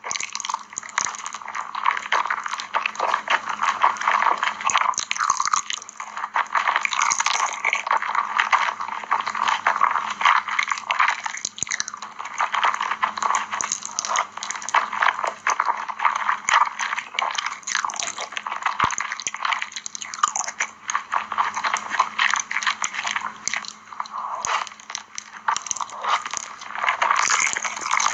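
Close-up eating sounds: a person chewing spicy cheese instant noodles, a continuous run of wet mouth clicks and squelches.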